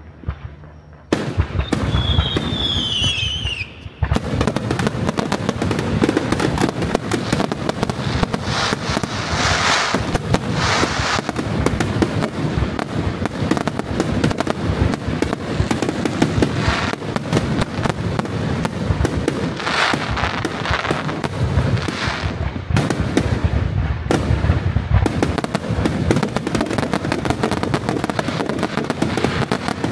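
Fireworks going off in a dense, continuous crackle that starts about a second in, with a falling whistle just after.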